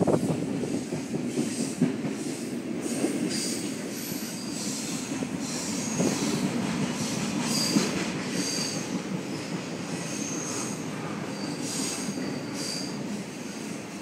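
Freight train of container cars rolling past below, a steady rumble of wheels on rail joined every second or so by short, high-pitched squeals from the wheels.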